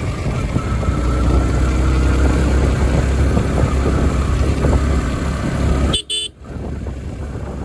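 Motorcycle riding along a road: a steady low engine and road rumble that breaks off suddenly about six seconds in, then carries on quieter.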